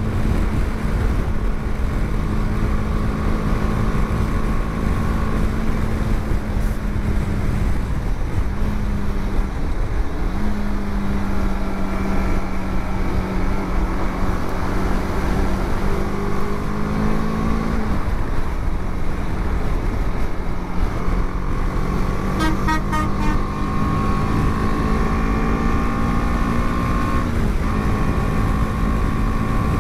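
BMW G 310 GS's 313 cc single-cylinder engine running steadily at highway cruising speed, about 110 km/h and around 6500 rpm, with a steady pitch that drifts slightly with the throttle. Heavy wind rumble on the microphone underneath.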